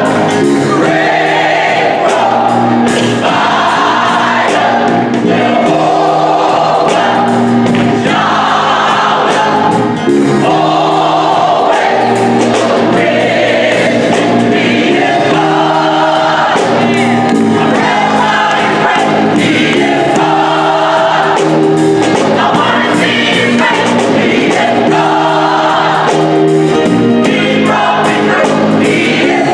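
Gospel choir singing in full voice with a live band: guitar, drum kit and organ under held low notes.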